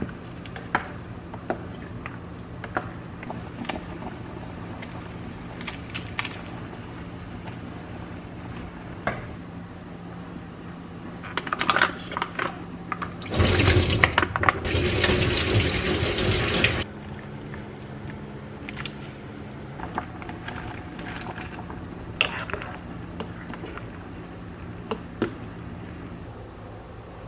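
Kitchen work: scattered light knocks and clinks of utensils and dishes over a steady low hum, and about halfway through a tap runs hard into the sink for roughly three and a half seconds, then stops suddenly.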